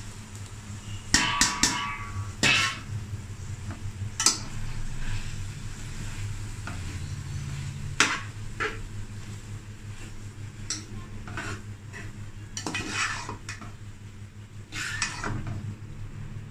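Metal spoon stirring boiled macaroni and vegetables in an aluminium pot, with scattered clinks and scrapes against the pot's sides and a ringing metal clang about a second in.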